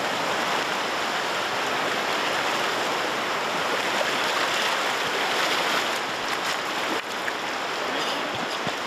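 Fast-flowing river water rushing steadily over rocks and riffles.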